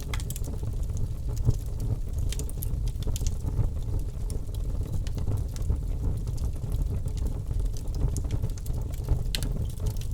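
Wood fire burning in a fireplace, crackling with scattered sharp pops over a steady low rumble of the flames.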